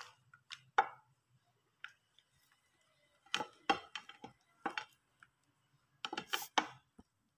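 Plastic Acer laptop charger brick and its coiled cords being handled and set against a hard tabletop: scattered light clicks, taps and knocks, in small clusters about one, three to four, and six seconds in.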